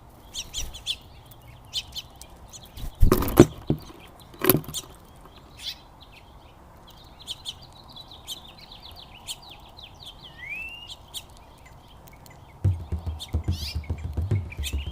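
Small songbirds chirping and twittering in quick short notes, with two loud sharp rustling bursts about three and four and a half seconds in. Near the end a low rhythmic thumping starts up.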